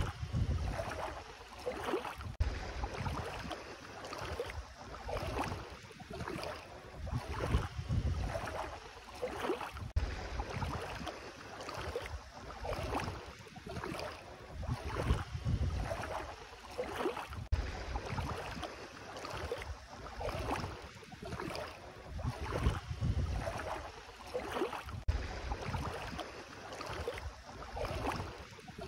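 Bare feet wading through ankle-deep shallow sea water, sloshing and splashing with each step in a steady walking rhythm, with wind rumbling on the microphone.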